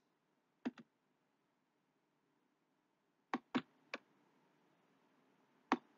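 Stylus clicking on a writing tablet as a symbol is handwritten: about six short, sharp clicks, two about two-thirds of a second in, three close together around three and a half seconds in, and one near the end, over faint room tone.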